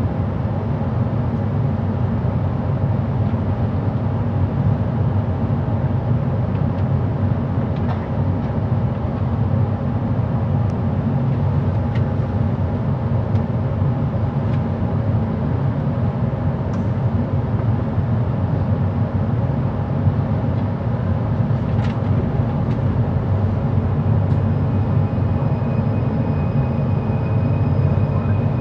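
Bombardier Innovia ART 200 light-metro train running on elevated track, heard from inside the car: a steady low rumble with the hum of its linear induction motor, which on this train set sounds distorted. A high, thin motor whine comes in near the end.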